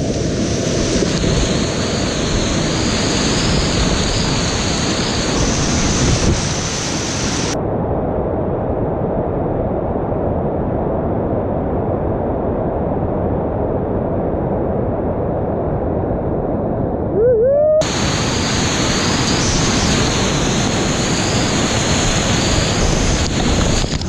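Whitewater rapids rushing loudly and steadily around a kayak, the churning river close to the microphone. In the middle the roar turns duller for about ten seconds, then comes back bright.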